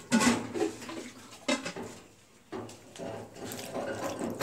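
Water poured into a volcanic-stone molcajete and sloshed around while the stone pestle scrapes and knocks against the bowl, rinsing out the ground garlic and spices, in several short bursts.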